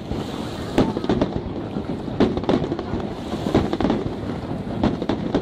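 Aerial fireworks display: shells bursting in a rapid, irregular string of bangs, several a second at times, over a continuous crackle from the glittering white bursts.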